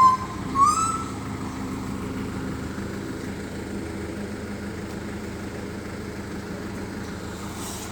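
Bus diesel engine idling steadily, with two short rising chirps near the start.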